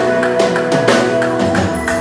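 Drum kit played live, with many quick sharp strikes on drums and cymbals over held chords from accompanying instruments.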